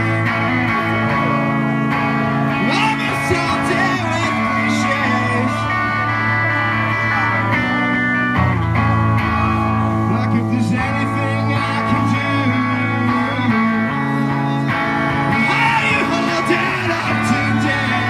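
A live song: a man singing over his own electric guitar.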